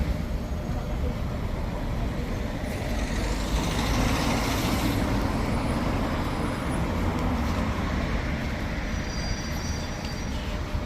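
A large flock of pigeons flapping their wings, a rustling whirr that swells about three to five seconds in, over a steady rumble of road traffic.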